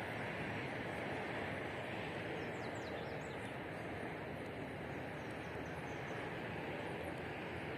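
Steady rushing outdoor background noise, with faint high chirps of small birds over it; a quick run of descending chirps comes about three seconds in.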